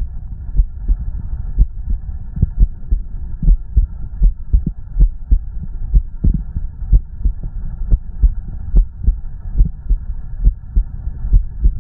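A human heartbeat heard close up: regular low thuds at about one beat a second over a faint steady background noise.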